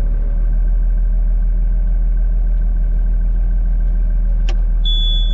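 Engine of a farm machine running steadily, with one sharp click about four and a half seconds in and a steady high whine that starts near the end.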